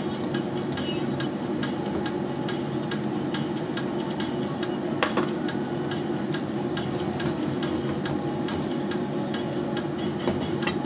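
A metal slotted spoon scraping and clinking against a wok as it turns and lifts turon (banana and glutinous-rice spring rolls) out of hot frying oil, over a steady sizzle. One sharp knock comes about halfway through, and two more near the end.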